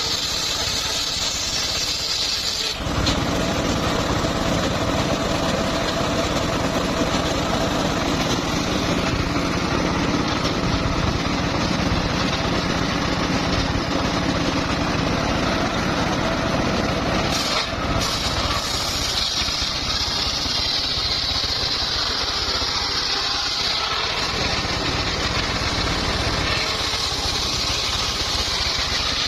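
Engine-driven circular saw running steadily, with a high whine that comes in briefly at the start and again for about ten seconds in the second half.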